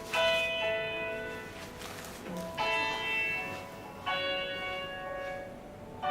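Background music of bell-like chimes: ringing chords struck four times, each fading away before the next.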